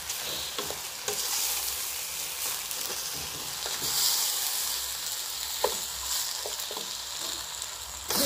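Washed rice being stir-fried with a wooden spatula in a hot stainless-steel pot of oil: a steady sizzle with the grains scraping as they are turned, and a few sharp knocks along the way.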